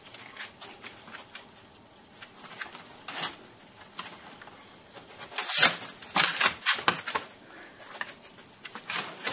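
Irregular scratching and rustling in a box as a pet skunk hunts crickets, with a few louder scrapes in the middle.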